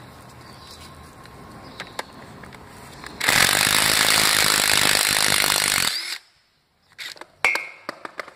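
Cordless impact wrench hammering for about three seconds, starting about three seconds in, breaking loose a 10 mm hex plug in an engine block. A few short clicks follow as the tool comes off.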